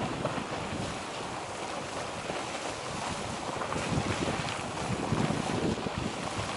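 Geyser erupting, its water splashing and hissing in a steady rush, with wind buffeting the microphone in low gusts.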